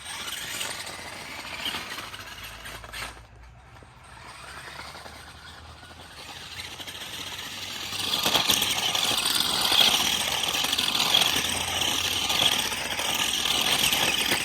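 Radio-controlled monster truck doing donuts on dirt: its motor and spinning tyres make a rough, steady noise, quieter at first and getting louder from about eight seconds in.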